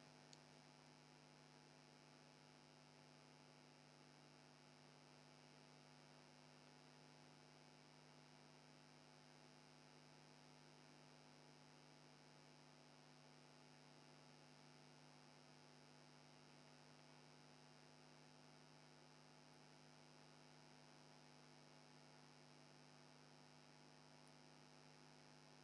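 Near silence: only a faint, steady hum.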